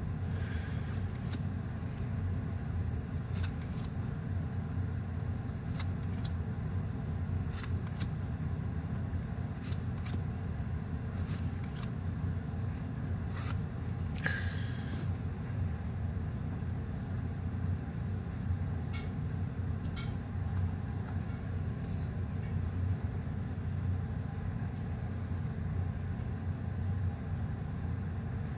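Trading cards being handled and slid one behind another, giving scattered faint clicks and ticks, over a steady low hum.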